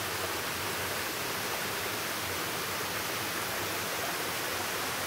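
Rainforest creek rushing over rocks in small cascades: a steady, even rush of water.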